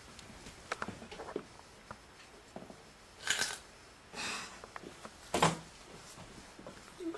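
Close handling and movement noise: scattered soft clicks and short rustles, with three louder brushing rustles about three, four and five and a half seconds in.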